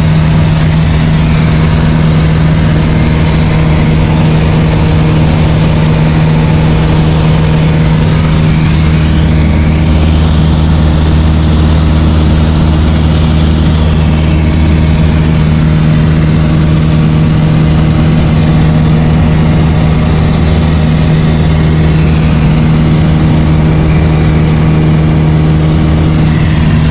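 Light aircraft's piston engine and propeller droning steadily in flight, heard from inside the cabin. A deeper hum grows stronger about nine seconds in.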